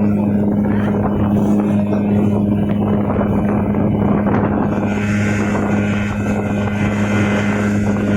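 Speedboat's motor running steadily at one even pitch, with water and wind noise; a brighter hiss joins about five seconds in.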